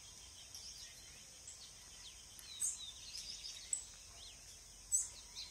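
Birds calling in short, high chirps over a steady, high insect drone, all faint.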